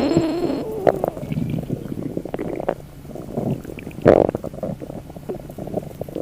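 Human stomach rumbling: irregular gurgles and squelches, with a louder gurgle about four seconds in. A short hiss cuts off less than a second in.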